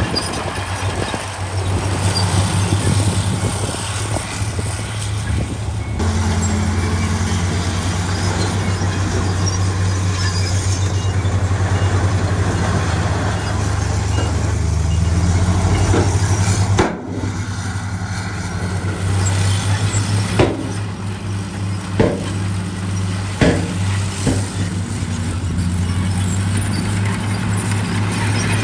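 Heavy diesel construction machinery running steadily, with a few sharp metallic clanks in the second half. The sound cuts out for an instant about two-thirds of the way through.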